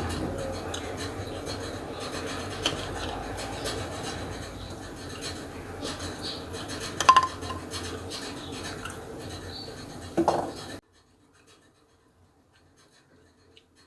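Kitchen handling sounds while making jalapeño pickle: steady rubbing and scraping with a few sharp clinks of glass or dishware, the loudest about seven seconds in. It cuts off suddenly to near silence a little before the end.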